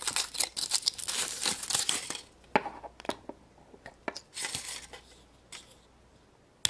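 Foil wrapper of a Kinder Surprise chocolate egg crinkling and tearing as it is peeled off, then a few sharp snaps and clicks as the chocolate shell is broken apart and the plastic toy capsule inside is handled.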